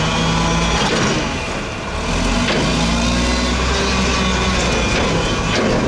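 Mack MR front-loader garbage truck's diesel engine running steadily as its hydraulic forks empty a dumpster over the cab into the hopper and start lowering it. A few sharp knocks come about a second in, again around two and a half seconds, and near the end.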